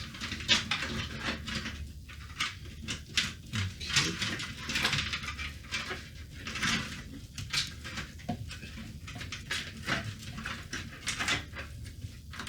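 Clicks, taps and rustling of hands fitting a power supply and pushing its cables into the computer case, coming irregularly throughout.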